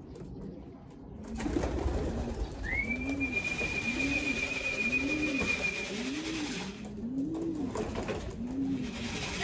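Racing pigeons at the loft cooing over and over, with wing flaps as birds lift off the roof. A long, steady whistle with a short upward slide at its start sounds about three seconds in, the call used to bring the birds into the loft.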